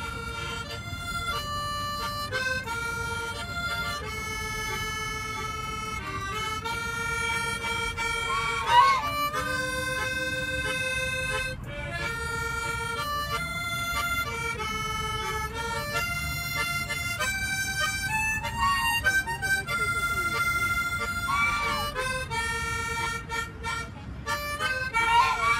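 Harmonica playing a slow melody of held notes that step up and down, with domestic geese honking along a few times, the loudest call about nine seconds in.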